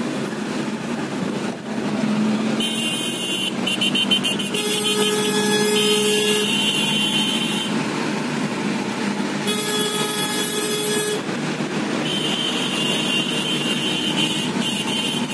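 Dense road traffic heard from inside a moving car: steady engine and road noise with long horn blasts from surrounding vehicles, in three stretches, the first lasting about five seconds.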